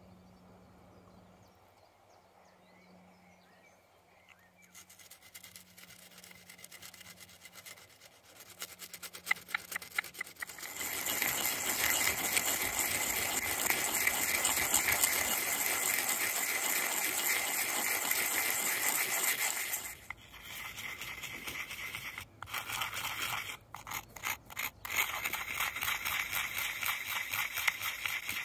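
Deer metacarpal bone being ground against a flat stone slab coated with slurry, shaping the head of a bone adze: a gritty rasping of back-and-forth strokes. It starts faintly, turns loud and continuous about a third of the way in, then breaks into shorter runs of strokes with brief pauses.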